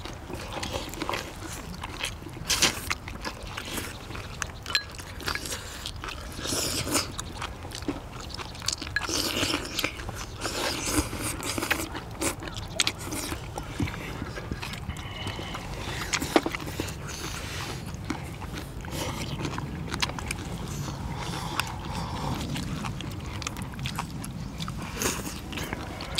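Several people eating spicy steamed monkfish with bean sprouts: chewing and biting, mixed with many short clicks of chopsticks and a spoon against bowls.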